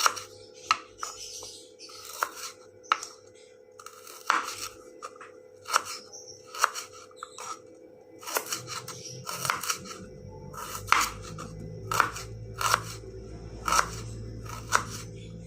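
Knife slicing shallots thinly on a cutting board: a run of irregular sharp chops, a little more than one a second.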